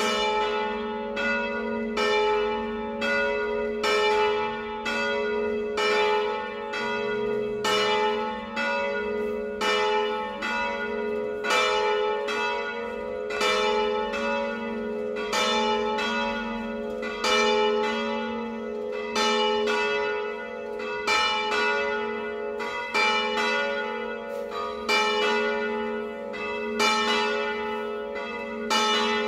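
Two swinging church bells, tuned A3 and B3 (La3 and Si3), ringing a festive peal. Strokes come a little more often than once a second, each ringing on into the next over a steady hum.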